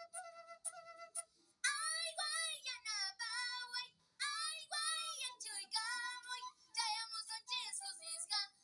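A child singing an Andean melody in a high, strong voice, phrase by phrase. Quieter, steadier notes come first, and the voice comes in loud about a second and a half in, with a short break near four seconds.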